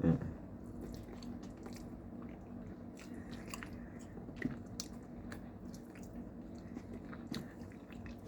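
A person chewing a mouthful of chicken spaghetti close to the microphone, with small wet mouth clicks scattered throughout.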